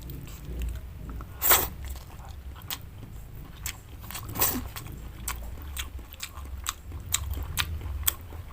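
Close-up chewing and biting of cooked vegetables: wet mouth clicks and crunches, with two louder bites about a second and a half and four and a half seconds in.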